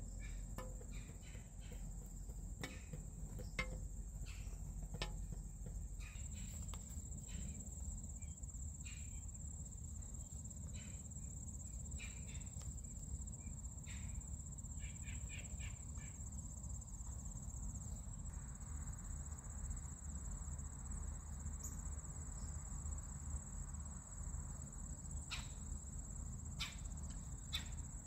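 Steady high-pitched chorus of crickets or other insects, with scattered short clicks and taps close by, more of them in the first half and again near the end.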